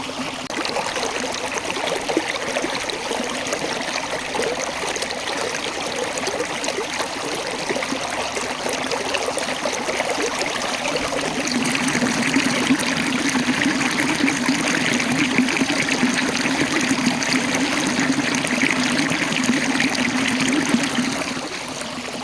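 Small waterfall: water rolling and splashing over rocks in a steady rush, which grows a little louder about halfway through and eases again near the end.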